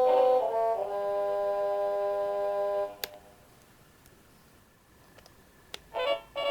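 Seiko NR435P quartz alarm clock playing its electronic melody alarm: a tune of held chime notes ends about three seconds in with a sharp click. After a couple of seconds of near silence with a few faint clicks, the next melody starts near the end with short, evenly repeated notes.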